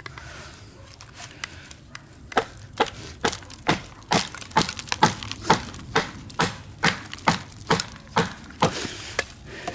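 A small hatchet striking a board stood on end and splitting it: a steady run of about sixteen sharp wooden knocks, roughly two a second, starting about two seconds in.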